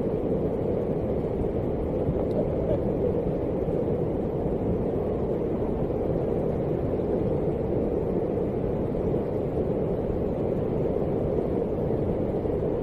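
Floodwater rushing in a steady, unbroken low noise.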